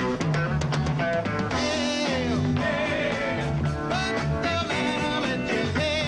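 Background rock music with guitar, a steady beat and a singing voice.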